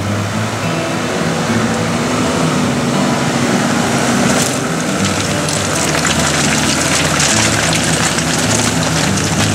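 Toyota LandCruiser 80 series 4.2-litre turbo diesel engine running as the 4WD drives past. From about halfway through, its tyres crunch over loose rocks.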